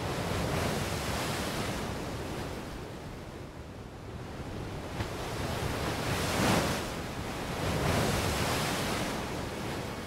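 Heavy ocean swell breaking and washing over a flat rocky shelf at low tide, the surf swelling and fading, with two louder breaks in the second half.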